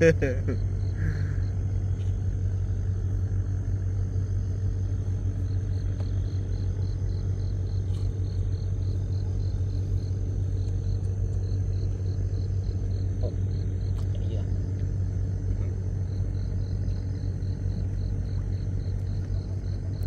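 Small boat engine running steadily with an even, low hum that does not change for the whole stretch.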